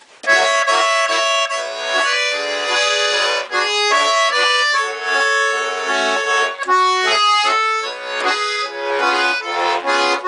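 Bayan (Russian button accordion) playing the instrumental introduction of a song: a quick melody over held chords, starting about a quarter second in.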